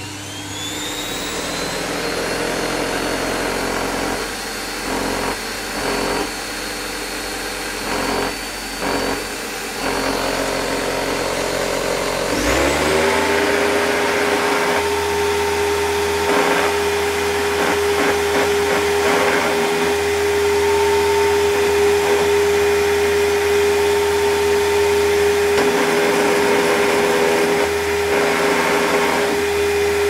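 Dirt Devil Platinum 1000 bagged upright vacuum cleaner running, its motor whine rising as the power is turned up, with intermittent rattling that the owner puts down to something loose inside on high power. About twelve seconds in, the running sound changes suddenly and a new steady hum sets in.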